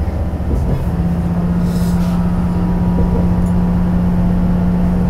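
Diesel railcar's engine running under power as the train pulls away from a station, a steady low drone that settles onto one held tone about a second in.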